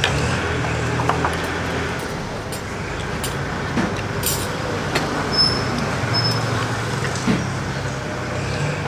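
A steady low mechanical rumble like a motor vehicle's engine running, with a few light clicks of cutlery on plates and two brief high beeps about halfway through.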